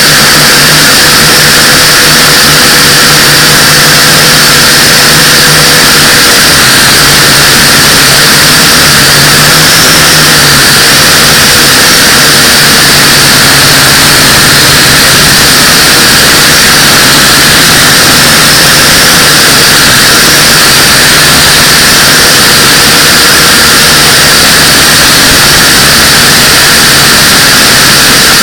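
Small toy FPV quadcopter's motors and propellers running in flight: a loud, steady, hiss-like whir with a faint hum underneath, its pitch wavering slightly.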